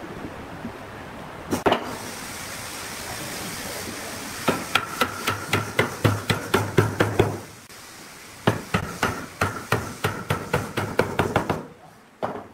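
Wooden mallet tapping a pine post down into a glued joint in a curved chair base. One knock comes early, then two runs of quick blows, about four a second: the first starts about four and a half seconds in, the second about eight and a half seconds in.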